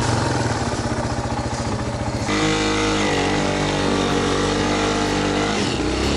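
Yamaha Serow single-cylinder four-stroke trail bike engine running while ridden: a fast chugging pulse at first, then a little over two seconds in the revs rise into a higher, slightly wavering note that eases off near the end.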